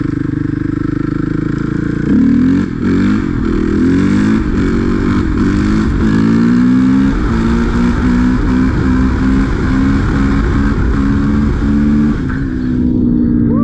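2014 Suzuki RM-Z450's four-stroke single-cylinder engine on the move. About two seconds in it opens up hard and revs up and shifts up through several gears, with the pitch climbing and dropping back at each shift. It then holds a steady high rev and eases off near the end.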